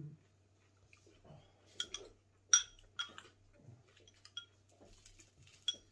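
A metal spoon clinking against a ceramic bowl during a meal: about five short, bright clinks with a brief ring, the sharpest about halfway through.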